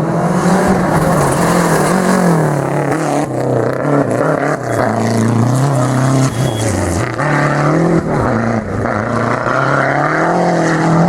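Rally car engine under hard use, revving up and dropping back several times, its pitch rising and falling.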